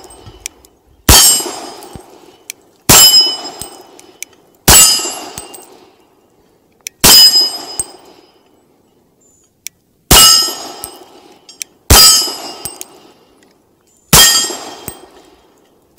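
Seven single shots from a Bul Armory Radical 2011 pistol in .40 caliber, fired at a slow, even pace about two to three seconds apart. Each shot is followed by the ringing clang of a steel plate target being hit.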